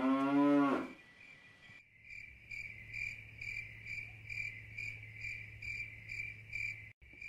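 A cow mooing once in the first second, then crickets chirping in a steady rhythm of about two chirps a second, cutting off abruptly near the end.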